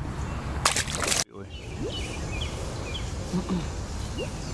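Outdoor ambience by a pond: a steady low wind rumble on the microphone, a brief rustling hiss about half a second in, then, after an abrupt break, faint short chirps of small animals.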